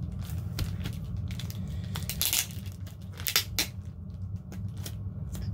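Clear plastic shrink-wrap on a book crinkling and crackling as fingers pick at it and pull it, in irregular crackles with louder bursts a little past two seconds in and again just past three.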